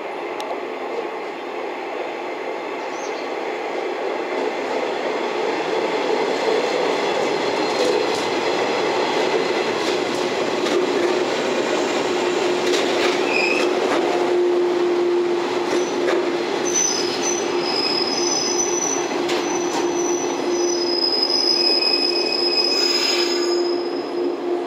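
JNR 115 series four-car electric train running into a station and slowing, its wheels rumbling and clattering as the cars pass close by, the sound growing louder over the first several seconds. From about the middle on, a steady tone and high, thin squeals come in as it brakes.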